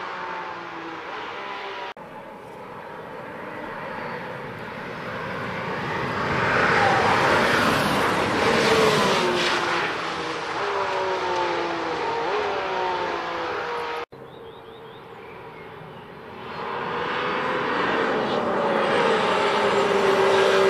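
The Mercedes-AMG One's turbocharged 1.6-litre V6 is running hard on a race track, in several passes cut together. The engine note swells as the car approaches and falls in pitch as it goes by. The sound cuts off abruptly about two seconds in and again about two-thirds of the way through.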